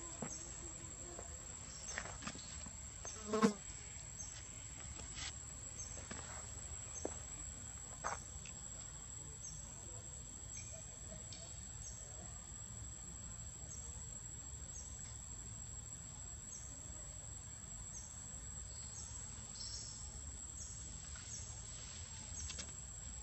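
Steady high-pitched insect chorus, with a short high note repeating about once a second. There are a few faint clicks, and a brief louder low sound about three and a half seconds in.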